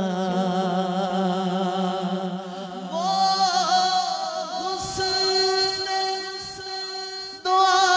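A male naat reciter singing long, ornamented held notes into a microphone, over a steady low hum in the first few seconds; the voice grows louder about three seconds in and again near the end.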